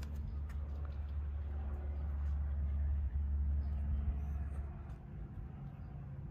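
A low, steady mechanical hum that fades about five seconds in as a slightly higher hum takes over, with a few faint clicks.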